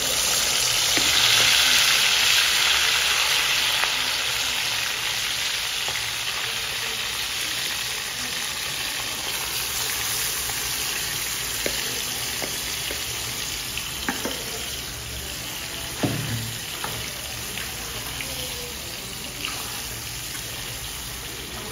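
Marinated goat liver, kidney, heart and lung pieces dropping into hot oil in a kadai and sizzling. The sizzle is loudest at first and slowly eases as a metal ladle stirs the pieces, with a few knocks of the ladle against the pan in the second half.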